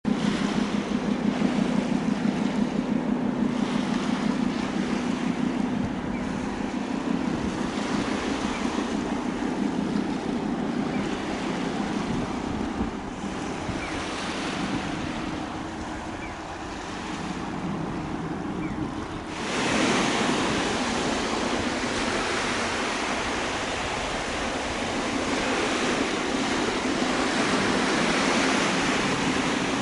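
Wind buffeting the microphone over the wash of waves, with a low, pulsing engine hum under it through the first half. About two-thirds of the way through, the hiss suddenly gets louder and brighter.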